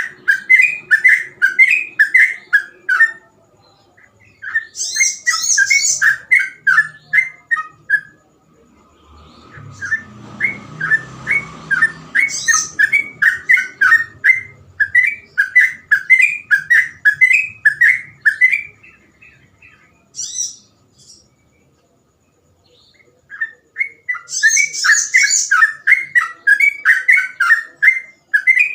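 Yellow-vented bulbul singing persistently in long runs of rapid, bubbling whistled notes, several a second, with short pauses between runs. Twice a burst of much higher, thinner notes joins in. A brief low rumbling noise comes about ten seconds in.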